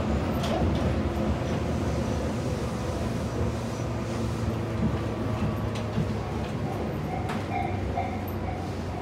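Interior running noise of a Tobu 8000 series electric commuter train car: a steady low drone of motors and wheels on the rails, easing gradually as the train slows toward a station.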